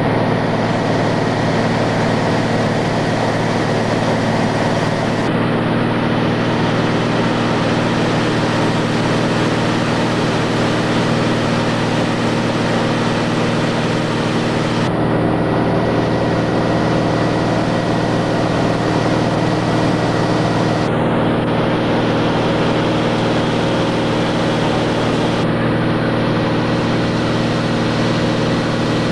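Steady drone of a light high-wing airplane's engine and propeller, heard from inside the cabin. The sound shifts abruptly a few times where the recording is cut.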